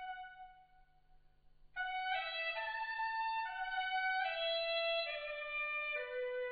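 Kunqu opera instrumental accompaniment. A held note fades away, and after a short pause near two seconds in, a slow melody of long sustained notes steps gradually down in pitch.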